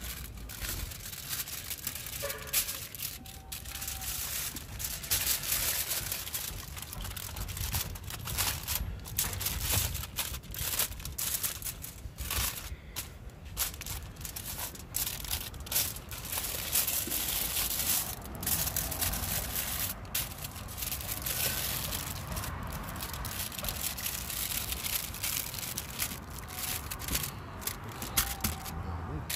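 Aluminium foil crinkling and crackling as hands fold and crimp it into a packet around fish, in an irregular run of small crackles.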